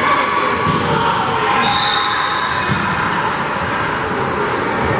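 Crowd chatter in a gymnasium during a basketball game, with a basketball bouncing on the hardwood court and a brief high squeak about two seconds in.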